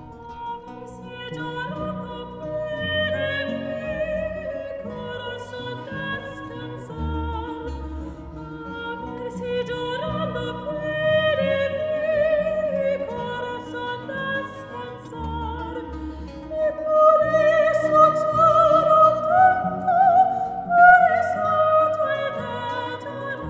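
Female voices singing a Peruvian baroque song in operatic style, accompanied by a period-instrument ensemble of plucked and bowed strings. The singing grows louder in the second half.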